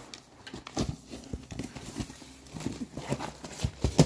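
Irregular tapping and thumping knocks, several a second, with the loudest thump near the end.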